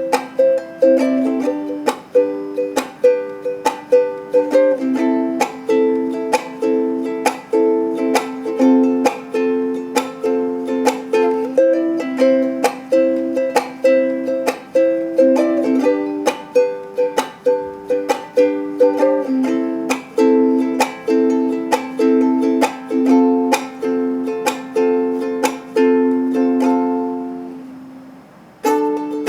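Ukulele strummed in chords, a steady rhythm of strokes with the chord changing every second or two; the playing stops briefly near the end, then starts again.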